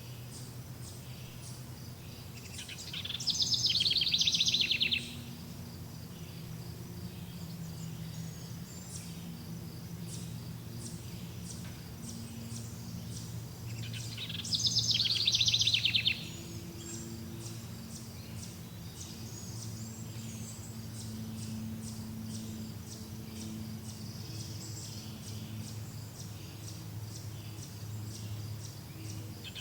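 A songbird sings a loud, rapid trilled phrase about two seconds long, twice, roughly eleven seconds apart. Between the phrases come faint, evenly repeated high chirps, like insects, over a low steady hum.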